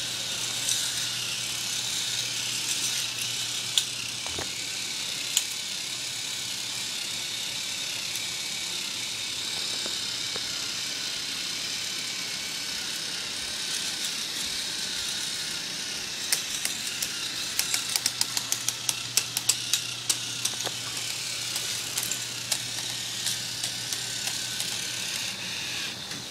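K'nex roller coaster model running: a steady whir of its motor and plastic chain lift with a faint low hum. About two-thirds of the way through there is a run of rapid plastic clicks and rattles.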